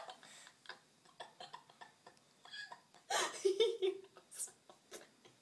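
A woman's laughter in short, breathy gasps, then a baby's brief vocal sound about three seconds in.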